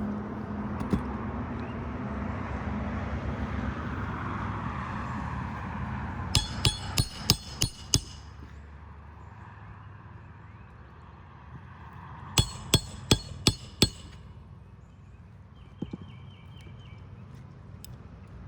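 Hammer driving roofing nails into a replacement asphalt shingle: a quick run of about six strikes, then after a pause another run of five.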